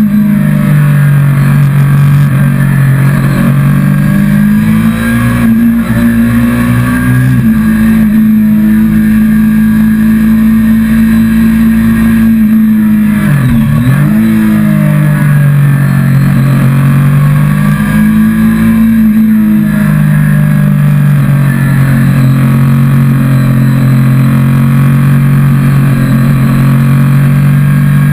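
Motorcycle engine heard from on the bike, pulling through the gears. Its pitch climbs and drops back at each shift, dips sharply and recovers about halfway through, and then holds steady near the end.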